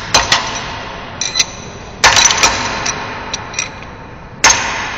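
Hammer striking a steel drift in a drilling machine's spindle slot to knock the taper sleeves loose: sharp metal-on-metal blows, each one ringing on as it fades. They come in clusters about every two seconds.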